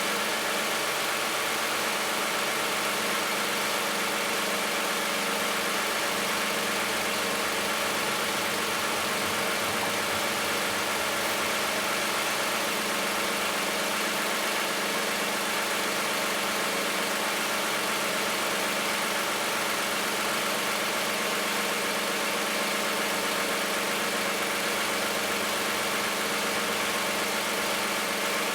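Toyota 2GR-FE 3.5-litre V6 idling steadily after a cold start, not yet fully warm. It is running on thinner 0W-20 oil instead of the specified 5W-30.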